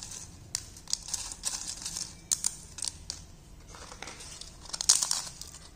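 Roasted papads being broken up by hand into a stainless steel bowl: irregular crisp cracking and crackling of the brittle wafers, with a louder flurry a little before the end.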